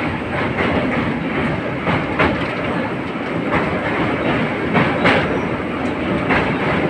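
Passenger train running along the track, heard on board: a steady rumble of wheels on rail, with irregular clacks as the wheels pass over rail joints.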